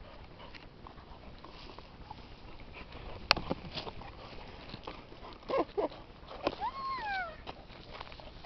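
Boxer dog whining while playing with a frisbee: two short whines a little past halfway, then a longer one falling in pitch. A single sharp click comes about three seconds in.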